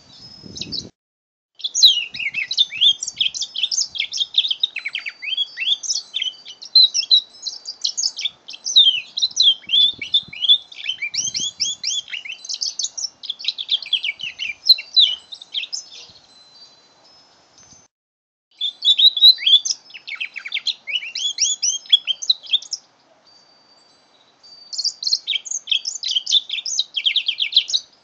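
A young mule canary (a canary–finch hybrid) singing. Its song is high-pitched and made of fast twittering trills and rolls. It comes in three phrases: a long one, then two shorter ones after brief pauses.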